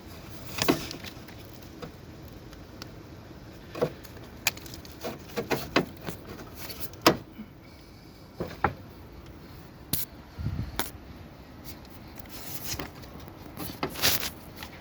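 Irregular metallic clicks, clinks and light knocks, scattered one at a time and in small quick clusters, like hand tools and parts being handled on metal.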